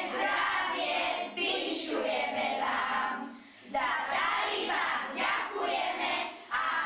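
A group of children singing together, with a short break between phrases a little after the middle.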